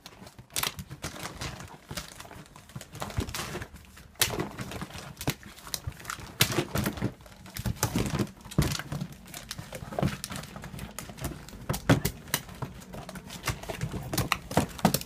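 A cat rummaging inside a plastic bin of wrapping-paper rolls: irregular crinkling and rustling of paper with many small knocks and clicks as the cardboard rolls shift against the plastic.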